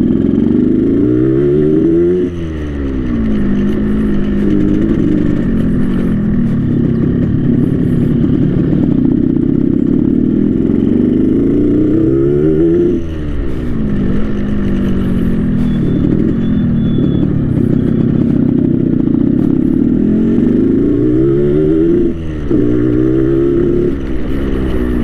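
Yamaha RX King two-stroke single-cylinder motorcycle engine running under way, set up for the burbling "ngorok" exhaust note. The revs climb and then drop three times, about two, thirteen and twenty-two seconds in, between steadier stretches.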